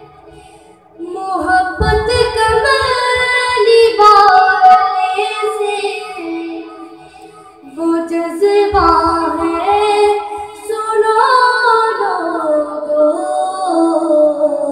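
A child's voice singing an Urdu naat in two long, ornamented phrases with held, wavering notes, the first starting about a second in and the second about eight seconds in.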